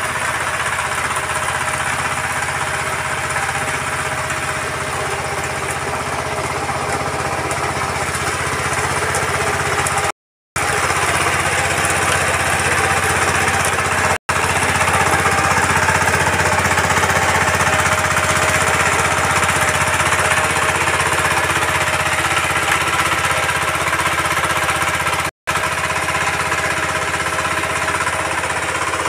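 VST Shakti 130 DI power tiller's single-cylinder diesel engine running steadily under load while its rotary tines churn the soil. The sound drops out briefly three times, about ten, fourteen and twenty-five seconds in.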